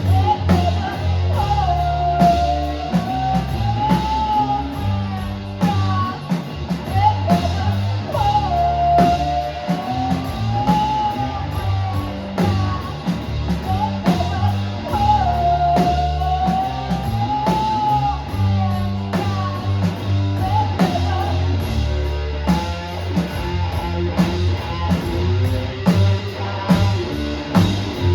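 Live rock band playing a song: guitar and drums with a sung melody repeating in phrases.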